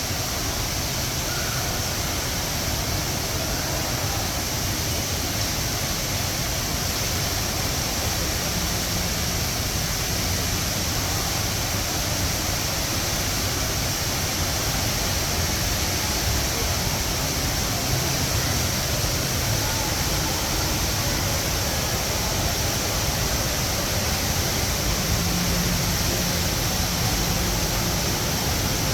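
Steady rush of falling water from the Rain Vortex, a very tall indoor waterfall, heard as even, unbroken noise.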